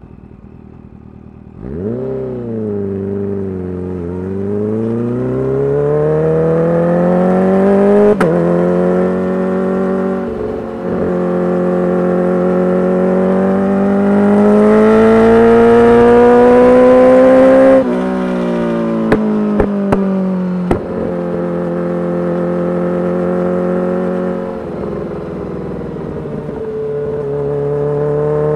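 Kawasaki Ninja H2's supercharged inline-four with a full titanium exhaust, accelerating hard: the engine note climbs again and again with brief breaks for gear changes. About 18 seconds in the throttle shuts and a few sharp cracks from the exhaust follow, then the engine runs steadily, drops off briefly and picks up again near the end.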